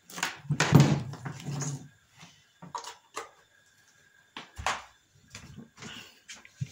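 Handling noise from a power tool's cord and plug being moved about on a table: irregular knocks, rustles and clicks, busiest about a second in, then a few scattered taps. The angle grinder is not yet running.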